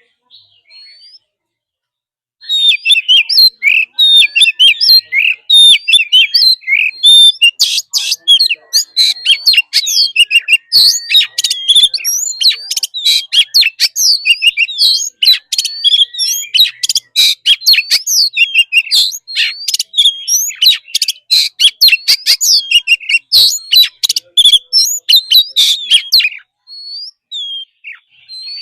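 Oriental magpie-robin singing a wild-type song: a fast, unbroken run of varied whistles, chirps and short glides that starts about two seconds in and breaks off a couple of seconds before the end.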